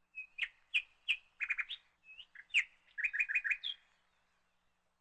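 A bird calling: a string of sharp, high chirps, including two quick runs of four or five notes, that stops a little under four seconds in.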